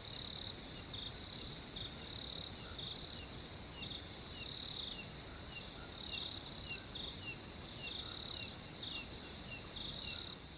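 Crickets chirping at night: a steady high-pitched trill with pulsing chirps layered over it, and a second regular series of short, falling chirps about twice a second.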